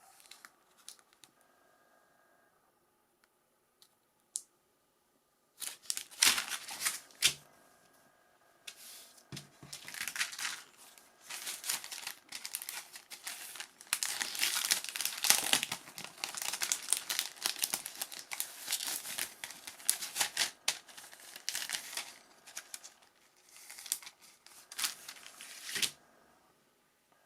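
Plastic packaging being handled and torn open, crinkling and rustling in irregular bursts, after a few quiet seconds with faint clicks.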